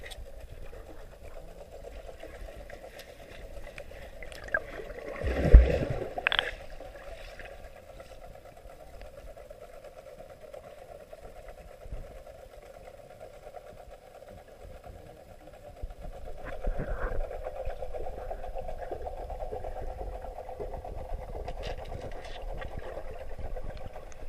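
Muffled underwater sound of a swimming pool as a dog paddles at the surface: a steady hum with water noise beneath it. There is a loud thump about five and a half seconds in, and the water noise grows louder from about sixteen seconds.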